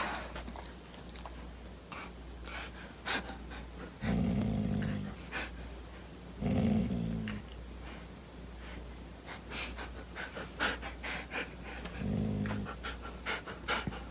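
A dog panting in short breaths, with three brief low vocal sounds about four, six and a half and twelve seconds in.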